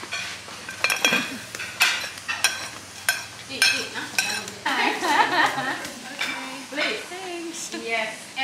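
Cooking sounds: a utensil repeatedly scraping and knocking against a cooking vessel, over food sizzling in hot oil. Brief background voices come in about halfway through.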